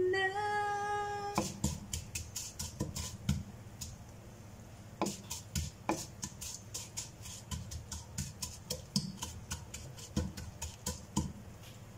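A spatula stirring vermicelli as it is sautéed in oil in a pot, knocking and scraping against the pot in many quick, irregular taps. A sung note of background music ends about a second and a half in.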